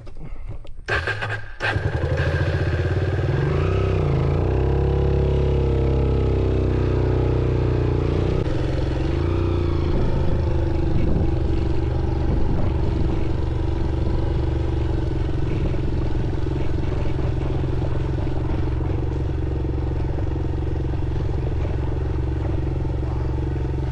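Motorcycle engine starting after a moment of short clicks, then running. Its pitch wavers for several seconds, then it holds a steady note.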